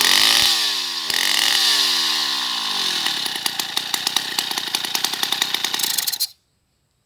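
Stihl 070 two-stroke chainsaw, about 105 cc, revved in quick blips that drop back down, then settling into a steady idle, which the owner calls a fine idle. The engine is switched off about six seconds in and stops abruptly.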